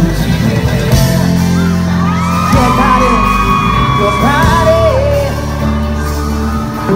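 Loud live K-pop concert music in a large hall: an amplified track with heavy bass under a male singer's live vocal, with long held notes from about two seconds in. The crowd yells and cheers over it.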